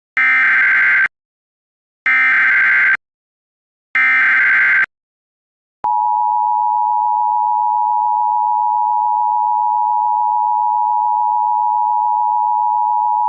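Emergency Alert System tones: three short bursts of buzzing SAME header data, about two seconds apart. About a second after the last burst, the steady two-tone EAS attention signal starts and holds.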